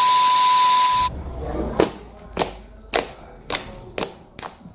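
A loud hiss with a steady high beep under it for about a second, cutting off abruptly; then slime with styrofoam beads being squeezed by hand, giving about six sharp wet pops and clicks roughly half a second apart.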